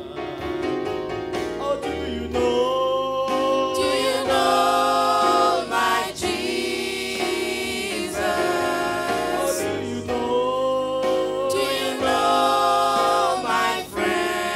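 Small gospel vocal group singing in harmony with electronic keyboard accompaniment, holding long notes, with brief breaks between phrases.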